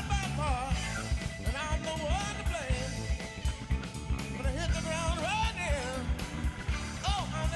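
Live blues band playing an instrumental passage: a lead instrument plays a bending, wavering melody over bass and drums keeping a steady beat.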